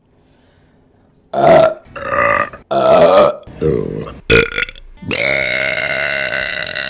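A woman burping loudly: a quick run of five short burps, then one long drawn-out burp beginning about five seconds in.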